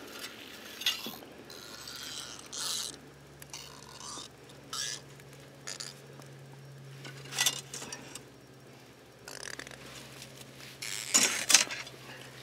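Scattered short, light clinks and scuffs of hands handling a caught trout and metal ice-fishing tackle (hook, rod and slotted ice scoop) on the ice, the loudest pair about 11 seconds in, over a faint steady low hum.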